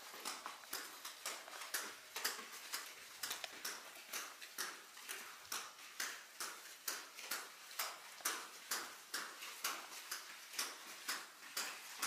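Footsteps of one person walking at a steady pace along a carpeted hallway, a short tap about twice a second.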